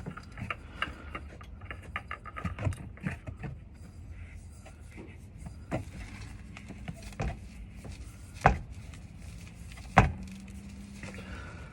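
Handling noises: a quick run of small clicks and taps, then a few single sharp knocks spaced a second or two apart, over a low steady hum.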